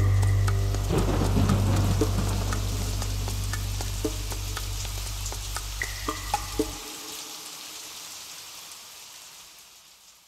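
End of the song's mix: a held low bass note that cuts off about seven seconds in, under a steady rain-like hiss with scattered drip-like plinks. Everything fades out gradually.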